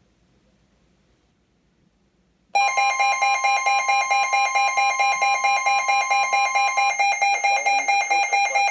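About two and a half seconds of near silence, then a loud electronic weather-alert tone starts abruptly and keeps going, several pitches pulsing rapidly, announcing the next NOAA Weather Radio warning.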